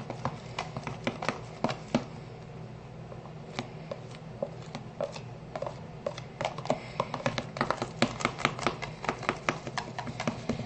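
Mixing utensil clicking and scraping against a bowl as shower gel is stirred: quick irregular taps, fewer in the middle and coming thick and fast from about six seconds on.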